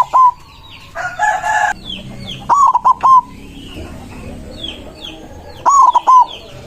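White zebra dove (perkutut) cooing in short phrases of quick, bouncing notes, twice, about three seconds apart. About a second in comes a louder, harsher call from another bird, and small birds chirp faintly throughout.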